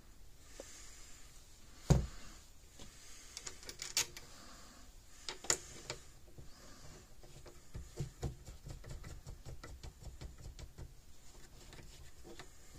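Small handling noises: a sharp knock about two seconds in, then a run of faint, rapid ticks and scrapes as a plastic terminal knob is screwed by hand onto the fence energizer's threaded output post, a fit that has been too stiff to go all the way on.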